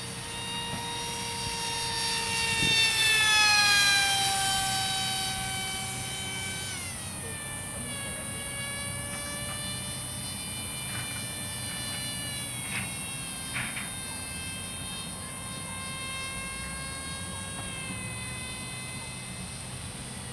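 Electric motor and propeller of a small radio-controlled delta-wing plane whining in flight. It grows louder about three seconds in, then falls in pitch and settles to a steadier whine, as on a fly-past.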